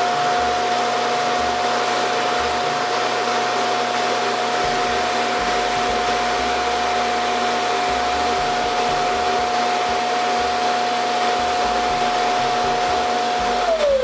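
Self-emptying dock of a Verefa V60 Pro robot vacuum running its suction motor to pull dirt out of the robot's dustbin into the dock's bag. It makes a loud, steady rush of air with a single held whine, which begins to wind down at the very end as the emptying cycle finishes.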